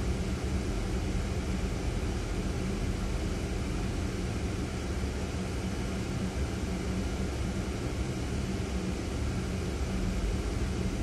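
Ford Fiesta's engine and road noise heard from inside the cabin while moving slowly in traffic: a steady low rumble with a constant hum.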